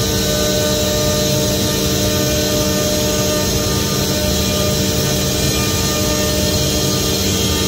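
Omnitech Selexx Mate CNC router running: a steady mechanical drone from the spindle head and machine, with several held whining tones and no change in speed or load.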